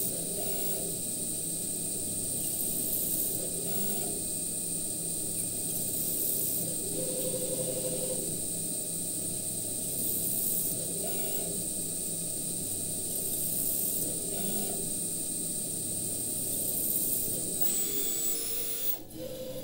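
ProtoTRAK RMX CNC mill running a center-drilling cycle: a steady high spindle whine over a low hum, with a short motor whir about every three seconds as the axes move from hole to hole. The whine stops near the end.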